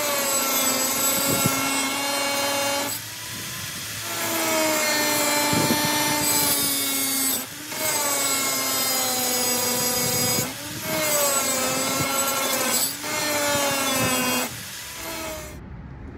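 Angle grinder cutting off the heads of the rivets holding a mirror bracket to the truck cab, in about five runs of a few seconds each. Its high whine drops in pitch as the disc bites into the metal, and it stops near the end.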